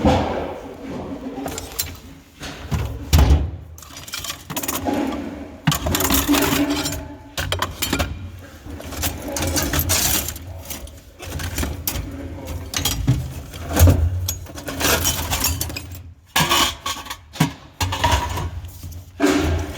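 Irregular clattering, knocking and rustling of objects being handled, in uneven bursts with no steady rhythm.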